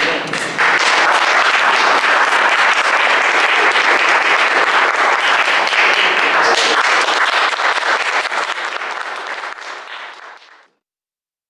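Audience applauding: a dense, steady clapping that starts about half a second in, thins out over the last couple of seconds, and then cuts off suddenly.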